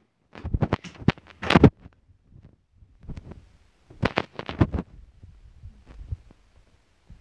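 Irregular thumps and knocks from a handheld phone being carried about, with handling bumps on the microphone and footsteps on a wooden floor or stairs, in two bursts with fainter knocks between.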